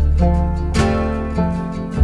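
Background music with plucked string notes over a deep bass line, a new chord struck about every half second or so.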